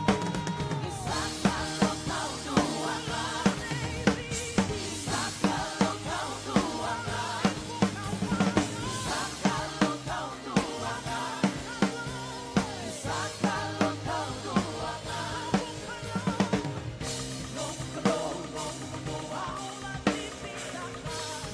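Live worship band playing an instrumental passage: drum kit keeping a steady beat with bass drum and snare, over sustained keyboard or guitar chords and a melodic line.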